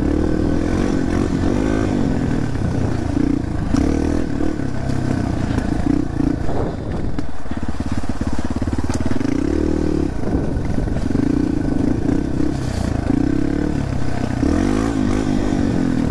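Yamaha TT-R230 dirt bike's air-cooled single-cylinder four-stroke engine being ridden hard, its note rising and falling with the throttle. The revs drop off a little past halfway, then climb again.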